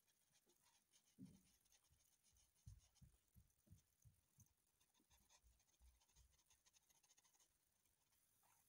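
Faint graphite pencil scratching on drawing paper in short, irregular shading strokes, with a few soft low bumps from the hand and pencil on the paper.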